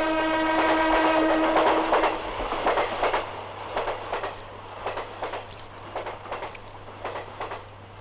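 Train horn sounding one long steady note, then train wheels clacking over rail joints at about two to three clacks a second, fading away.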